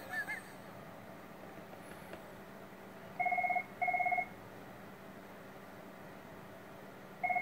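Telephone ringing: a trilling electronic double ring, two short bursts close together, starting again about four seconds later.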